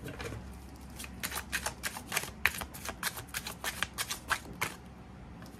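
A deck of tarot cards being shuffled by hand: a quick run of crisp card flicks and slaps, starting about a second in and stopping a little before the end.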